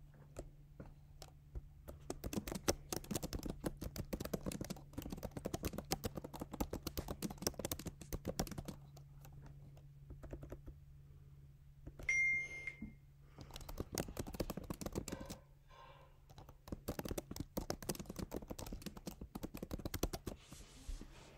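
Typing on a laptop keyboard in three quick bursts of key clicks with short pauses between them. A brief high electronic beep sounds about halfway through.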